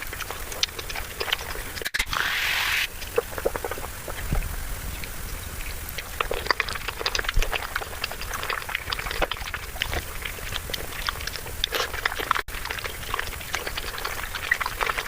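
Mukbang eating sounds sped up fivefold: a rapid, dense run of chewing, smacking and mouth clicks, with a short rushing noise about two seconds in.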